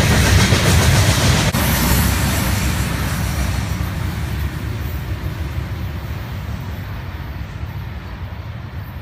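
Rumble and clatter of a CSX freight train's open-top hopper cars rolling past on the rails, fading steadily as the train moves away. A brief click about a second and a half in.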